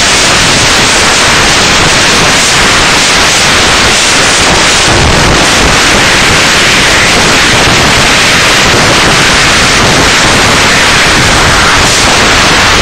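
Loud, steady wind rushing over a helmet-mounted camera's microphone at speed on a snowmobile, with no engine tone standing out.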